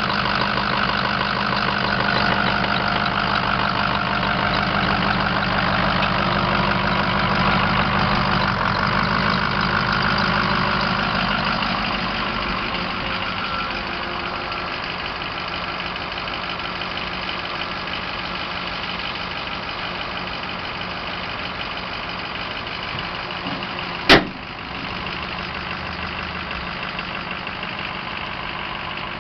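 2004 Ford F-550's Power Stroke turbo-diesel V8 idling steadily, loud and close at first, then quieter from about twelve seconds in. Near the end a single sharp clunk stands out as the dump bed goes up, and the engine keeps idling.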